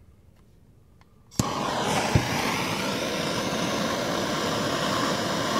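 Handheld gas torch lit with a sharp click about a second and a half in, then its flame burning with a steady, even hiss while it heats a screwdriver tip red-hot.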